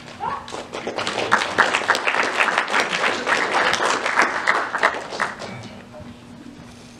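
Audience applauding. The clapping builds over the first second, holds for about four seconds and fades out about six seconds in.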